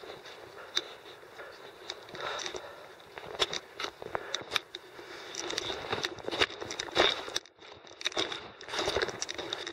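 A climber's footsteps: irregular scraping steps with sharp clicks, busier and louder from about five seconds in.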